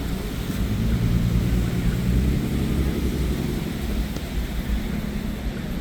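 Street traffic: a vehicle engine running with a low, steady hum and rumble.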